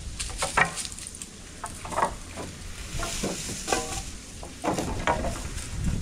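Wooden boards being handled: a string of irregular knocks and scrapes as lumber is pulled from a pile, one board briefly ringing as it scrapes.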